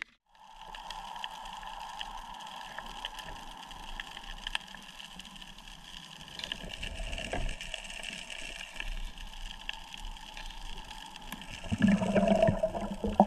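Muffled water noise, a steady hiss with scattered faint clicks, heard through a camera under the water. Near the end the water stirs louder and busier as a crab is grabbed by hand.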